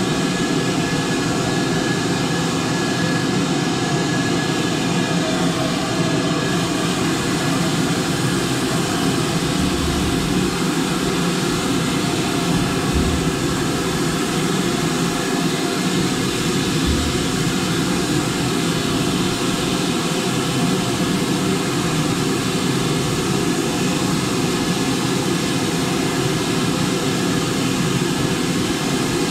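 Steady rushing roar from BR Standard Class 5 steam locomotive 73156, even throughout, with no clear exhaust beat. A few dull low thumps come in the middle.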